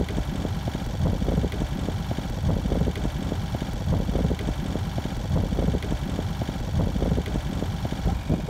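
Steady low rumble aboard a sailing yacht under way at sea, with a rapid flutter and an even loudness throughout.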